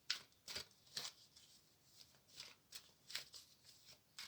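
Tarot cards being shuffled by hand: soft, short swishes of the deck at an uneven pace, about two a second.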